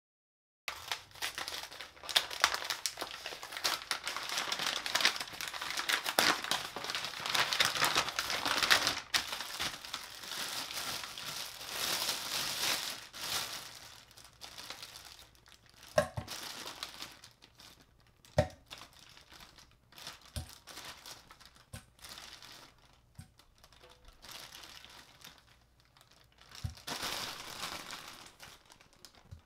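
Clear plastic bag and brown paper wrapping crinkling as hands handle and unwrap them. The crinkling starts just under a second in and is dense for the first half. It then thins to sparser rustles with a few sharp clicks, and there is another burst of crinkling near the end.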